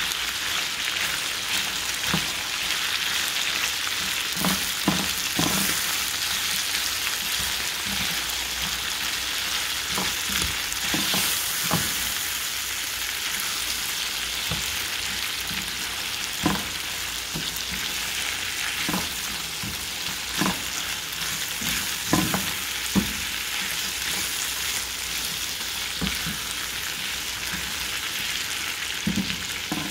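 Beef cubes and sliced onions sizzling steadily in a frying pan, frying in the beef's own rendered fat with no oil added. A spatula stirs them, with irregular scrapes and knocks against the pan.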